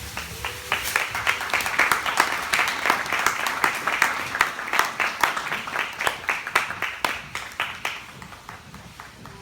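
Audience applauding: many hands clapping, building up in the first second, then dying away over the last second or two.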